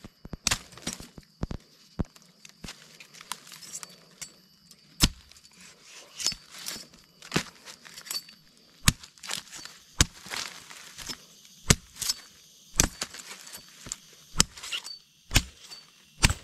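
A blade chopping and cutting at a wild plant's stem and shoot: irregular sharp knocks and cracks, about one or two a second, with crackling and snapping of plant fibre between the strokes.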